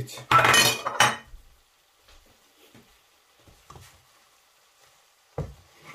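A plate clatters loudly as it is set down on the kitchen counter, a rattle lasting under a second. Then faint stirring of leaves in a frying pan with a wooden spatula, and a single sharp knock near the end.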